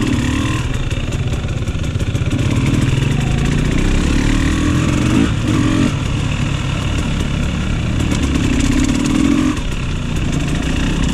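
KTM dirt bike's engine running at low speed on a trail, revs rising and falling with the throttle.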